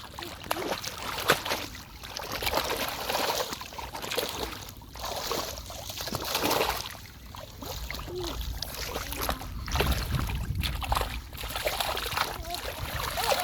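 River water splashing and sloshing in uneven, irregular spurts, stirred by hands and bodies moving through the water while fishing by hand.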